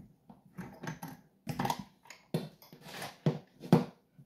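Pin tumbler lock plug being turned through a full rotation with picking tools, giving a run of about a dozen irregular, sharp metallic clicks.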